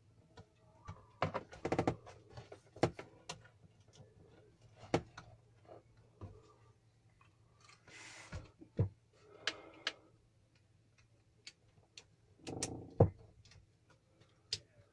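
Irregular small clicks, taps and brief rustles of hands handling wiring and a switch, with one sharper knock near the end.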